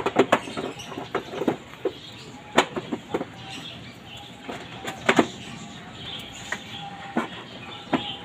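A Mitsubishi Lancer's plastic air filter box being closed by hand: irregular plastic knocks and clatter as the panel filter is seated and the lid pressed down, with sharp clicks as it is latched, the loudest about five seconds in.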